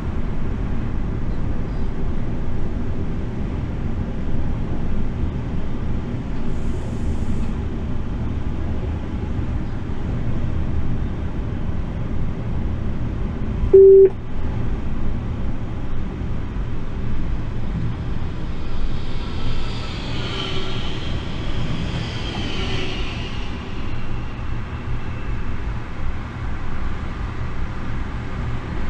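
Steady low rumble inside an electric locomotive's cab running along the track. About 14 seconds in a single short loud beep sounds from the cab, and a few seconds later a high, wavering squeal rises and fades away.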